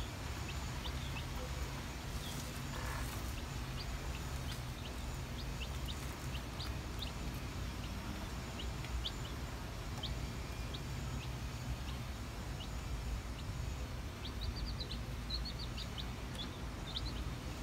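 Three-day-old chicks peeping: short, high cheeps scattered throughout, coming in quick runs near the end, over a steady low hum.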